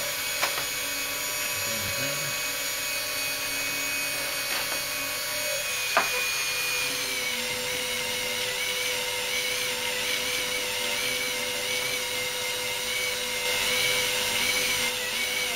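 Flexible-shaft rotary tool running steadily with a whine while its polishing bit, wetted with polishing powder and water, works over a glass paperweight; the whine wavers from about seven seconds in. Two short clicks come about half a second and six seconds in.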